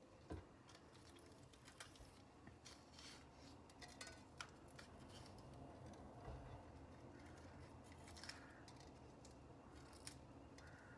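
Faint crisp snips and scrapes of a small knife cutting through pointed peppers and cutting out the seeds, with a few sharp little clicks of the blade.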